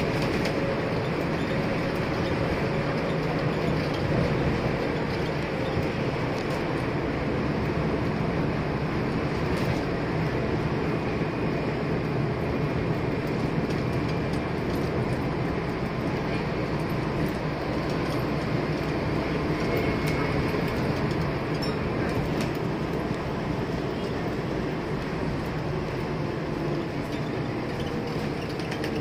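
Scania N230UD double-decker bus heard from inside the upper deck: a steady diesel engine drone with road noise and occasional light clicks and rattles. The engine note drops slightly near the end.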